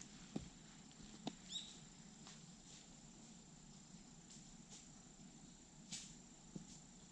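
Near silence of an outdoor path in autumn: a faint, steady, high insect trill with a few light taps, and a short high chirp about a second and a half in.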